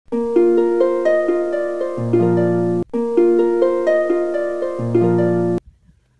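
Short intro music of plucked, harp-like notes climbing in a run, with a low bass note joining near the end of the phrase. The phrase plays twice and cuts off suddenly about five and a half seconds in.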